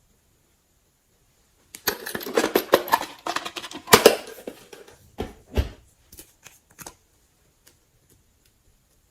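Slime being squished, giving a dense run of crackling clicks and pops about two seconds in that thins out to a few scattered pops.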